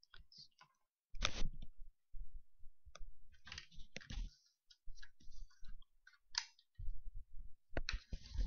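Irregular clicks and short rustling noises, coming in scattered bursts.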